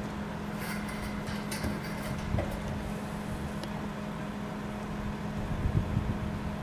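Steady low rumble of wind on the microphone under a constant low hum, with a few faint clicks in the first couple of seconds.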